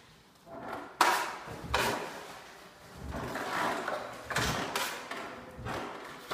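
Steel drywall taping knife scraping and spreading joint compound over a Strait-Flex corner angle: two sharp strokes about a second in, then a run of longer scraping strokes from about three seconds in.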